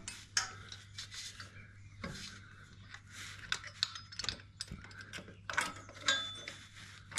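Irregular metallic clicks, clinks and rattles of a steel motorcycle centre-stand lifter as it is hooked into its mounting points and its pins and clips are handled, with one sharper clink near the end.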